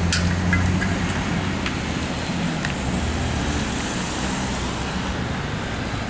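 Ford box ambulance's engine running as it pulls away past the microphone, its low hum fading. Then a car passes with tyre noise on the road, loudest about four seconds in.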